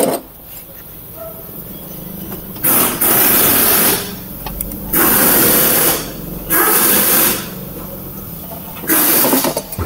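Four loud bursts of hissing, each about a second to a second and a half long, the first about three seconds in.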